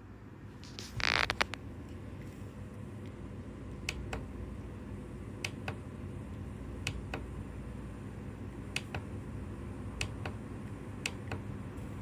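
Automatic aroma diffuser giving a short hiss of spray about a second in, followed by scattered sharp clicks over a steady low hum.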